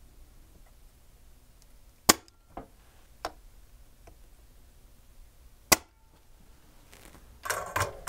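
A few sharp clicks and taps of hand tools against a circuit board while a surface-mount capacitor is desoldered. Two of the clicks are loud, about two and a half seconds apart, and a short clatter of taps comes near the end.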